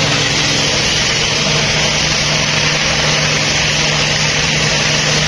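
Pressure washer spraying a motorcycle: the steady hiss of the water jet over the constant hum of the washer's pump motor.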